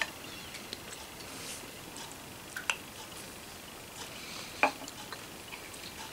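Low steady hiss with a few faint, sparse clicks and small knocks; the loudest knock comes about two-thirds of the way through.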